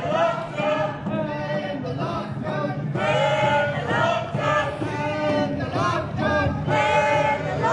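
A crowd of marchers singing together: many voices holding sung notes in short phrases, over a general crowd murmur.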